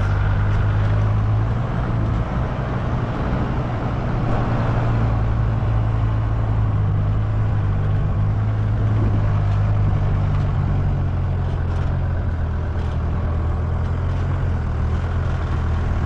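Motorhome engine running steadily as the van drives along a sandy dirt track, with its tyres rolling over the sand.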